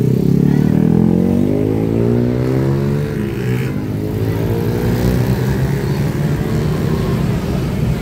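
Coach's diesel engine accelerating as the bus pulls away, rising in pitch over the first three seconds, followed by motorcycle engines passing close by.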